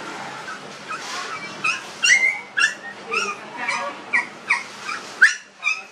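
Young puppies, about 25 days old, whimpering and yipping: about a dozen short, high squeaks in quick succession, starting about a second and a half in.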